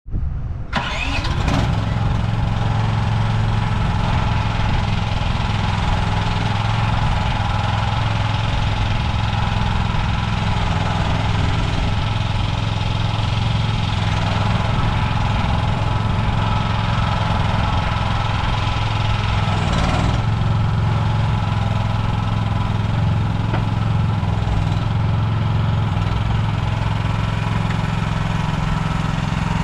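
Engine of a 2024 MIVA VA13C mini excavator running steadily at an even, unchanging speed.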